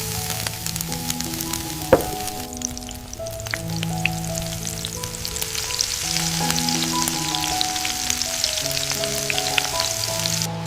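Food sizzling and crackling in hot oil in a pan, over soft background music of held low notes. A single sharp knock about two seconds in.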